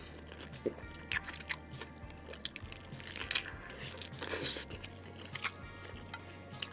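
Close-up eating sounds: biting and chewing fried chicken, with scattered crunches and wet mouth clicks. A denser run of crunching comes about four seconds in.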